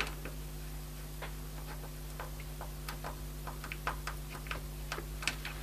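Small screwdriver turning the screw of the ACS712 current-sensor board's screw terminal block: faint, irregular ticks, about two or three a second.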